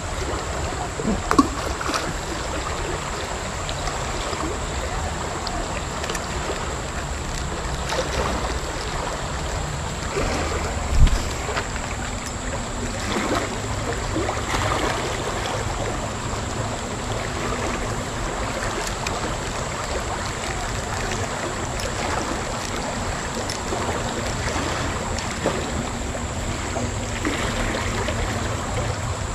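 Fast shallow river water rushing steadily over rocks, close to the microphone. Dull thumps break in about a second in and again about eleven seconds in.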